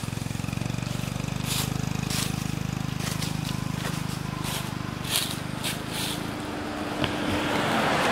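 A motor vehicle's engine running steadily with a low, pulsing hum, fading away about six seconds in. A rising rush of noise, like a vehicle passing, builds near the end, with a few light scrapes early on.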